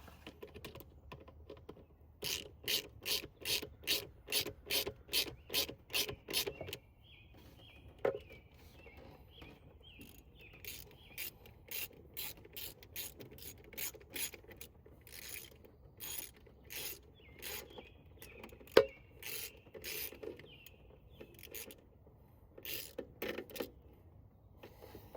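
Hand ratchet with a 10 mm socket clicking as it tightens bolts, about three clicks a second in runs with short pauses between strokes, and one sharper click about two-thirds of the way through.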